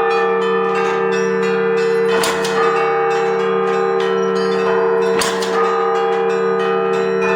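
Russian Orthodox church bells ringing (zvon). A steady deep hum from the large bells sits under a quick, dense chiming of smaller bells, with a heavier stroke about every three seconds.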